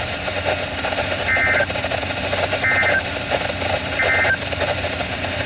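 Three short bursts of EAS/SAME digital data, the end-of-message code of a NOAA Weather Radio Required Weekly Test, each a brief warbling pair of high tones, about a second and a half apart, over steady radio static.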